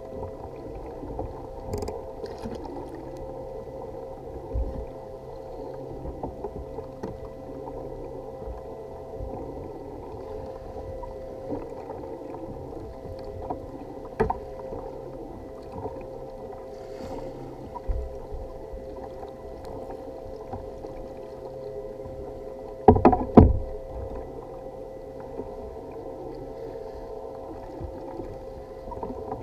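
Muffled sloshing and lapping of open-ocean water against a fishing kayak's hull. Scattered small knocks run through it, with a loud pair of knocks about two-thirds of the way through.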